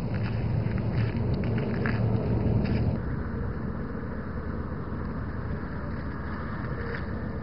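Low, steady rumble of a vehicle in motion with noise and light rattles. About three seconds in the sound drops slightly and becomes smoother.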